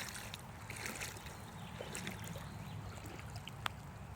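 Faint trickling water, with one sharp click about three and a half seconds in.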